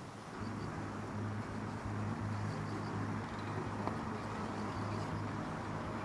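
A steady low hum like an engine running, over a faint outdoor hiss.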